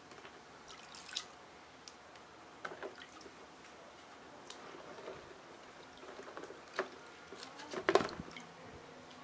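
Small metal carburetor parts and tools being handled: scattered light clicks and taps, with the loudest, a short clatter, about eight seconds in.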